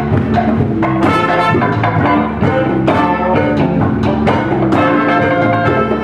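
Live band playing together: trumpet and saxophone over electric guitar and drums, with a steady beat.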